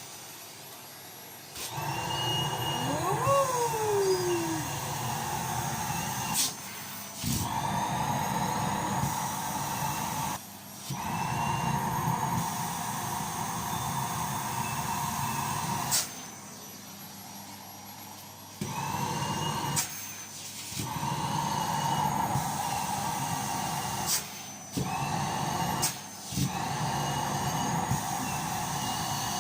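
Toy vacuum cleaner's motor switched on and off again and again, running with a steady whine in spells of a few seconds and stopping briefly in between. The pitch rises for a moment each time it starts.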